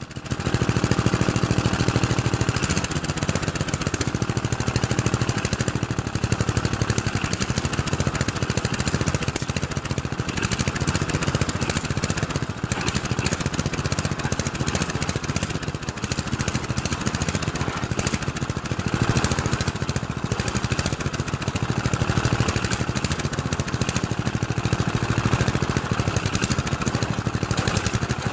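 Ride-on lawnmower engine running hard and steadily while the mower strains against a rope to pull out a tobacco plant. It gets louder suddenly about half a second in, then holds steady.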